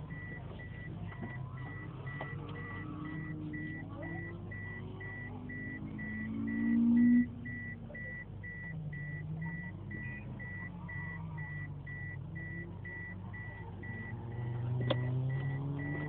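Turbocharged Mazda BP 1.8 L four-cylinder in an MX-3, idling and blipped, with one hard rev about six seconds in that cuts off suddenly and a smaller rise near the end. A high electronic beep repeats about twice a second throughout.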